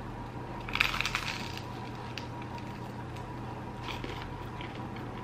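Crunch of teeth biting into a slice of toast topped with avocado and sardines, about a second in, followed by a few faint chewing clicks.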